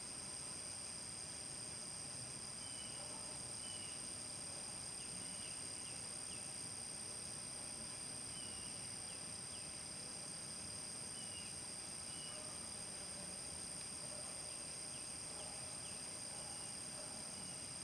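Faint outdoor ambience of a steady high-pitched insect chorus, like crickets or katydids, with scattered faint bird chirps.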